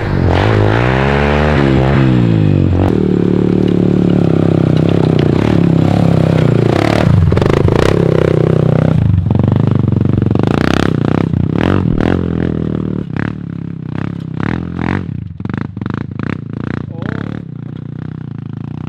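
Small ATV engine revving up and down, then pulling steadily under load as the quad climbs a steep rocky hill. In the second half the engine fades and stones and gravel clatter and scrape under the tyres in many short knocks.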